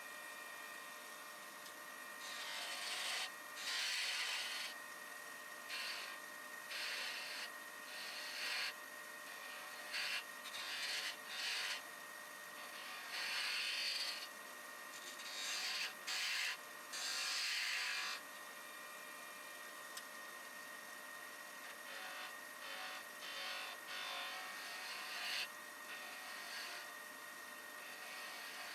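A wood lathe runs with a steady whine while wood is worked against the spinning piece in repeated rubbing, rasping passes of a second or so each, with short gaps between them.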